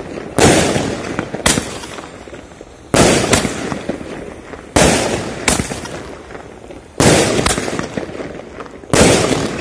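Six-shot firework cake of the heavy 'big banger' kind, which also throws out coloured smoke as it shoots, firing shot after shot about every two seconds: five loud booms. Each boom is followed about half a second later by a sharper crack, and each dies away over a second or so.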